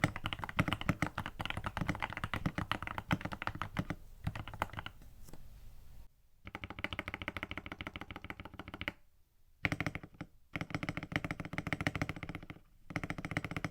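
Fast typing on a Tester68 mechanical keyboard fitted with lubed Outemu pink linear switches, a creamy keystroke sound. The typing comes in bursts, with short pauses about five seconds in and again about nine seconds in.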